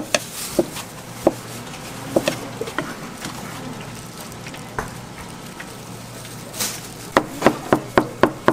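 Kitchen knife chopping food on a cutting board in quick, even strokes, about three to four a second. The strokes break off after about a second, come back as a few scattered knocks, and pick up again in a steady run near the end.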